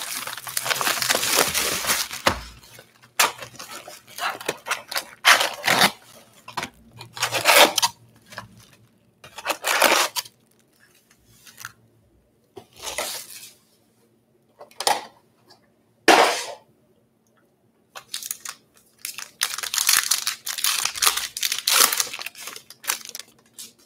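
Cardboard hobby box of Topps Pro Debut baseball cards being opened and its foil card packs handled, in irregular bursts of crinkling and rustling. Near the end a foil pack is torn open, a long stretch of tearing and crinkling.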